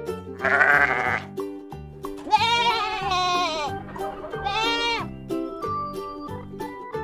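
Goats bleating three times, the middle bleat long and wavering, over background music with a steady beat.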